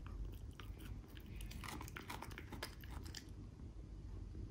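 Dachshund chewing a piece of carrot: a quick run of crisp crunches, thickest from about a second and a half to three and a half seconds in.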